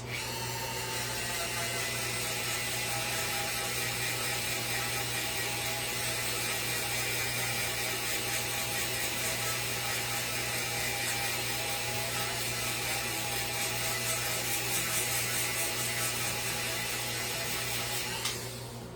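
A small handheld electric power tool running steadily against wood, taking material off a carved sign in shaping passes. It runs continuously and shuts off shortly before the end.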